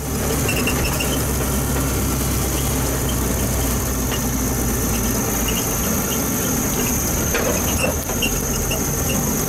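A vehicle's engine and road noise heard from inside while driving: a steady low drone with a constant high-pitched whine over it. The low drone eases a little about halfway through.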